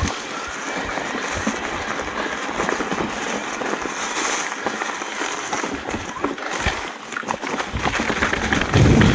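Mountain bike riding down a rough trail: tyres crunching over loose stones and the bike rattling in quick, irregular knocks. A low rumble comes in near the end and grows louder.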